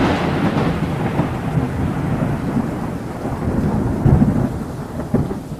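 Thunder rumbling and slowly fading over steady rain, with another low roll about four seconds in.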